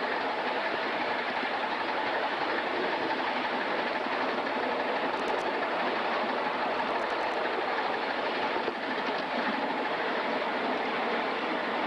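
Atlantic-type live-steam locomotive #988 under steam, making a steady, even rushing noise with no clear beat. A few faint clicks come about five and seven seconds in.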